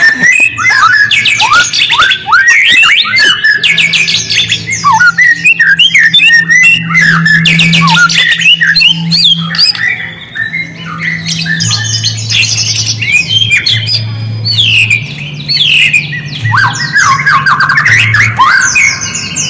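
White-rumped shama (murai batu) singing loudly: a fast, varied run of whistled phrases, rapid trills and harsh squawky notes. A steady low hum lies underneath through the middle.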